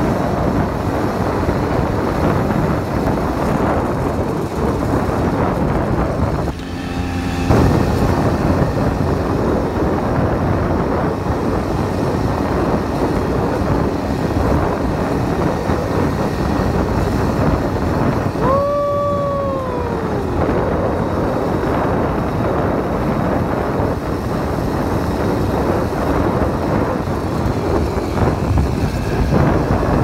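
Small 80cc bike engine running as it rides over a bumpy dirt lane, with heavy wind noise on the microphone. The sound dips briefly about seven seconds in, and a high tone glides downward for about two seconds past the middle.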